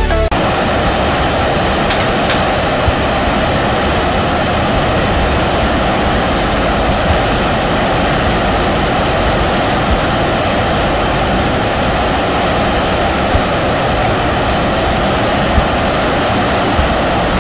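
River water rushing over a small stepped weir, a loud, steady wash of white water.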